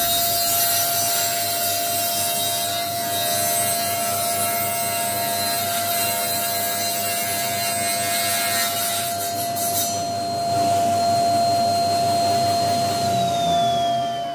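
Table saw running while an end-grain cutting board is fed through the blade, the cut lasting about ten seconds. About thirteen seconds in, the motor's whine starts to drop in pitch as the saw spins down.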